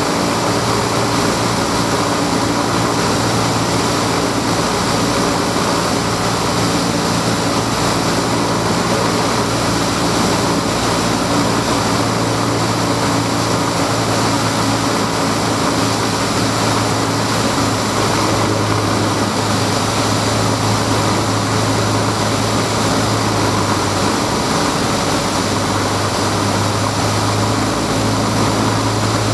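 Single-engine light aircraft's piston engine and propeller running at a steady, constant drone, heard from inside the cockpit.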